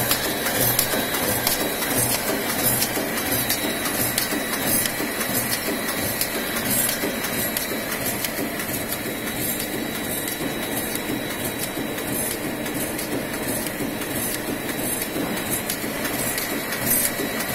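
Automatic paper hole punching machine running: a steady mechanical clatter from its belt-and-roller feeder, with regular clicks about two to three times a second and a faint steady high whine.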